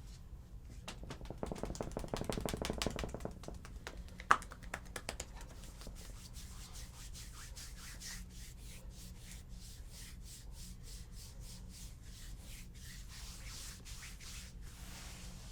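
Hands rubbing over skin in a massage, a continuous run of quick rubbing strokes that is loudest in the first few seconds. A single sharp click comes about four seconds in.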